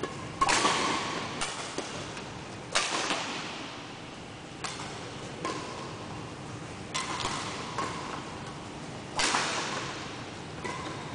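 Badminton rackets striking a shuttlecock in a rally: about nine sharp cracks one to two seconds apart, each ringing on in the echo of a large sports hall.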